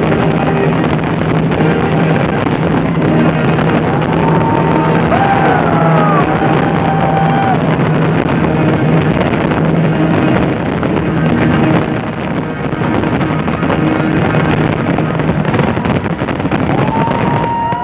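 A fireworks display bursting and crackling continuously, with music playing over it. Whistling tones glide up and down a few seconds in and again near the end.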